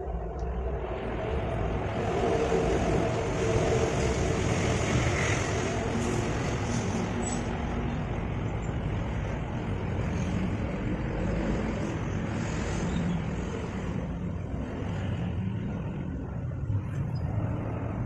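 Steady road traffic noise: motor vehicles running nearby, a low rumble with a broad hiss that builds about two seconds in and eases slightly near the end.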